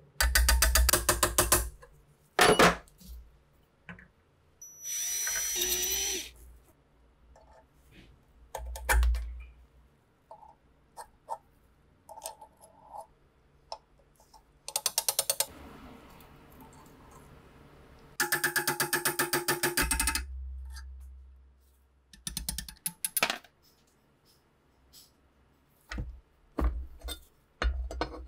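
Metal-on-metal tool work on a rusty SVT-40 rifle receiver during disassembly. Bursts of fast, even clicking last a second or two, there is a rasping scrape about five seconds in, and single knocks and clicks fall in between.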